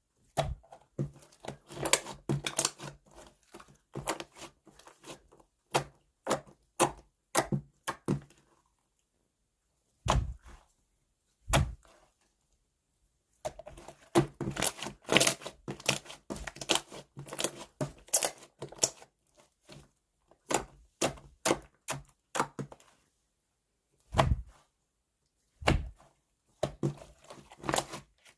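Slime being squeezed and poked by hand, making clusters of rapid sticky pops and clicks. A few duller, deeper thuds come about ten seconds in and again near twenty-four seconds, and the sound drops out completely between clusters.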